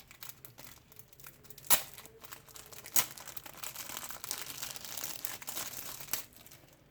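Packaging being handled and crinkled, with two sharp snaps near the start and then about three seconds of steady crinkling that stops shortly before the end.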